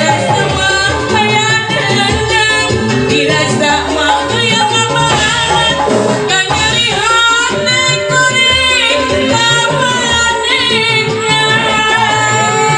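A woman singing a song through a microphone and PA, over amplified backing music with a steady beat.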